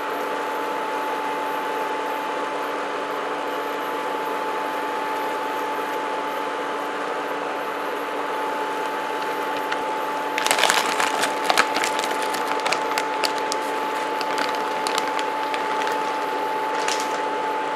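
PowerXL Vortex air fryer oven running: a steady fan whir with a constant whine, and the rotisserie motor's gears turning. From about ten seconds in, a run of clicks and rattles joins it.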